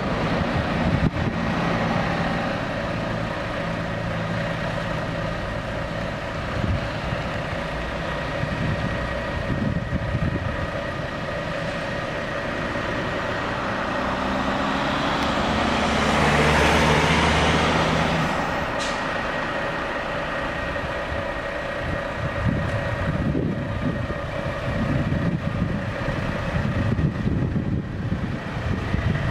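A heavy truck's engine idling steadily, with a constant hum and whine. About halfway through, a passing vehicle's noise swells and fades.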